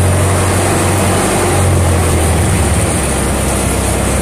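Boat engine running steadily under way, a deep continuous drone with an even rush of water and wind over it, heard from on board.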